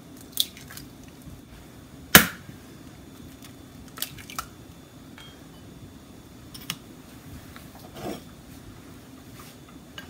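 Eggs cracked against a stainless steel mixing bowl: one sharp crack about two seconds in, the loudest sound, and a few lighter clicks and taps of shell on the bowl, over a faint steady hum.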